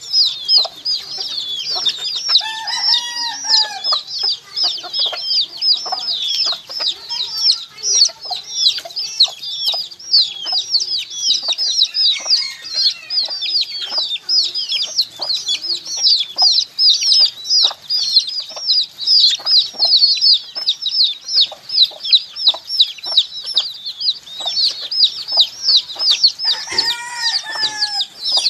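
A brood of baby chicks peeping without pause, many short high-pitched chirps overlapping. A lower, longer call sounds twice, about three seconds in and near the end.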